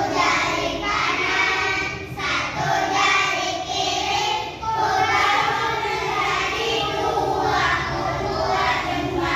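Young children singing a song together, in long held notes.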